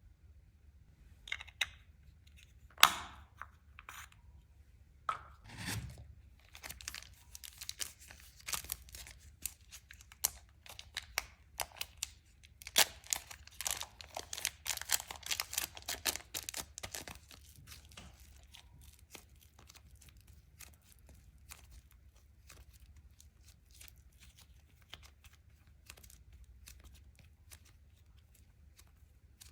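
Clear slime being worked by hand, giving sticky crackles and pops. A few sharp clicks come first, then a dense run of crackling that fades to faint scattered ticks a little past halfway.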